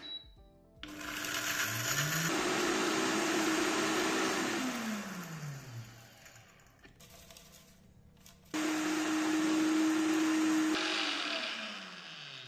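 Electric blender grinding whole dry spices and salt into a powder in two runs. The motor spins up about a second in, runs steadily and winds down. A second run starts abruptly past the eight-second mark and winds down near the end.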